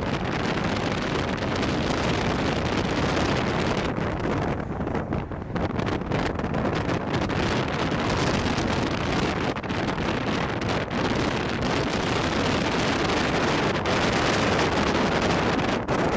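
Steady rushing wind noise on the microphone over a low vehicle rumble, easing a little in the higher pitches about five seconds in.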